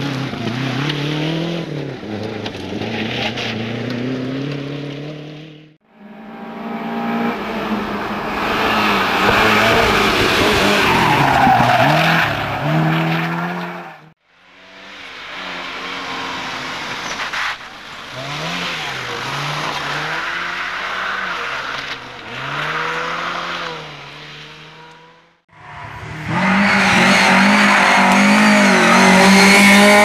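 Rally cars driven hard in a run of short clips, their engines revving up and dropping back again and again through gear changes and corners. The sound cuts off abruptly three times as one car's pass gives way to the next.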